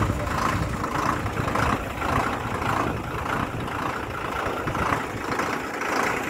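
A 12-wheel lorry's diesel engine idling steadily.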